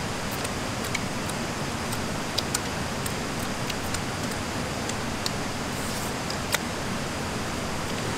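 Steady rushing of a rocky stream, with scattered small clicks and ticks over it, the sharpest about six and a half seconds in.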